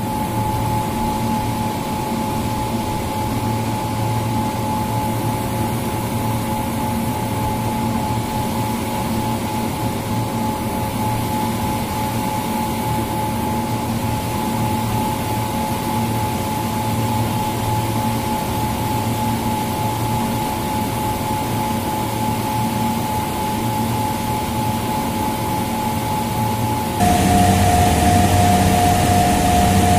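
Steady machine hum with a constant rushing noise under two steady tones; about 27 seconds in, both tones drop in pitch and the hum gets louder.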